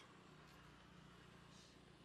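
Near silence with a faint low hum, and a soft, brief scrape of a small knife paring a fruit's skin about one and a half seconds in.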